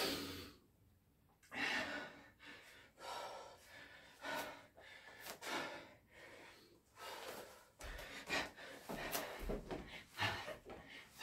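A man breathing hard and fast from exertion during repeated burpees with push-ups, about one loud breath a second. A few dull thumps come near the end.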